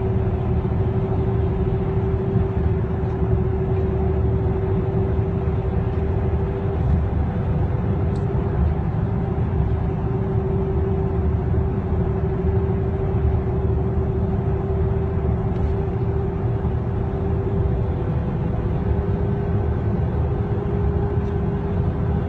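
Steady road and engine noise heard inside a car's cabin while driving at speed, with a constant droning hum running under the rumble.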